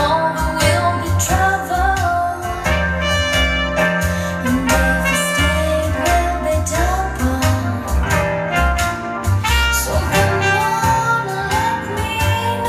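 Jazz-style music with singing, a stepping bass line and drums, played over a home-built speaker: a re-coned vintage JBL D130 15-inch driver with a Celestion super tweeter, driven by a Heathkit Williamson-type KT66 tube amplifier.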